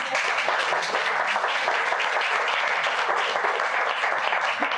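An audience applauding steadily, welcoming a speaker after his introduction.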